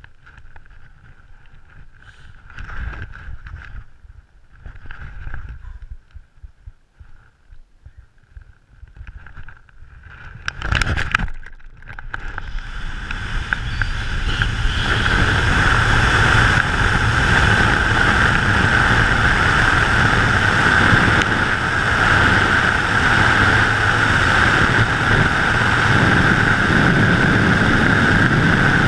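Wind on the camera of a wingsuit BASE jumper. Light gusts at first, then a short loud burst about eleven seconds in as the jumper leaves the edge. After that the rush of air builds over a few seconds into a steady, loud rush of wingsuit flight.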